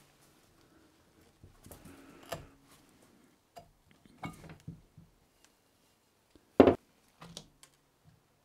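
Metal saildrive parts being pulled apart and handled on a workbench: scattered light knocks and clinks as the flange with the old rubber diaphragm comes off, and one sharp, loud knock late on as a part is set down or struck against the bench.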